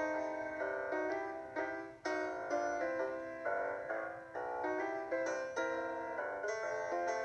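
Background music: a keyboard melody of struck notes that fade after each strike, about two new notes a second.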